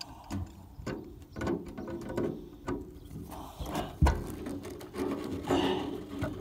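Pliers working a stuck fitting on a swamp cooler's copper water supply line: irregular metal clicks and scrapes, with a sharp knock about four seconds in.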